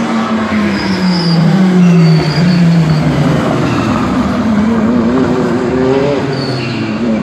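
Race car engine at full volume; its note falls over the first three seconds and then climbs again as the car comes off the throttle and accelerates. Brief high-pitched squeals sound now and then.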